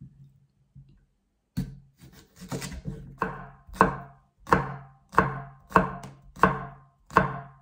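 Chef's knife dicing a cucumber on a wooden chopping board: regular chops, each a sharp knock on the board with a short crunch, about three every two seconds, starting after a second and a half of quiet.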